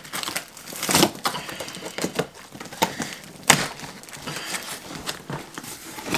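Packing tape being ripped off a cardboard shipping box and the cardboard flaps torn and crumpled by hand, in irregular crackles and rips, with louder tears about a second in and about three and a half seconds in.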